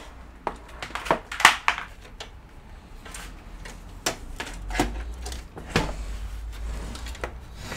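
Irregular clicks and knocks of hands moving cables and plastic connectors inside a desktop PC case, the loudest about a second and a half in.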